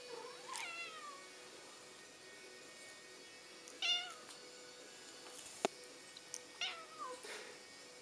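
Persian cat giving three short meows, about half a second, four seconds and six and a half seconds in, the middle one the loudest. A single sharp click comes shortly before the last meow, over a faint steady hum.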